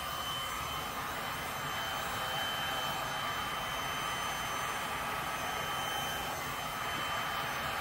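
Heat gun blowing steadily, a constant rush of air with a thin steady whine from its fan, used to warm and push poured resin.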